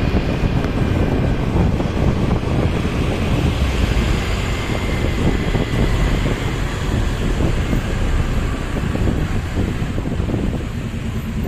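Heavy wind buffeting the microphone: a steady, loud low rumble with no horn sounding.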